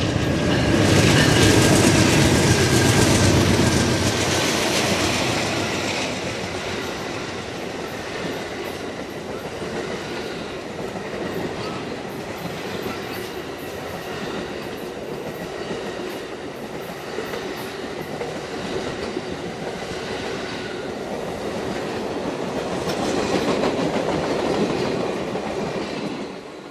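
Passenger train passing close by: two GE P42DC diesel locomotives are loudest in the first few seconds, then a long string of bilevel passenger cars rolls past with a steady noise of wheels on rail. The noise swells again near the end as the tail cars go by, then starts to fade.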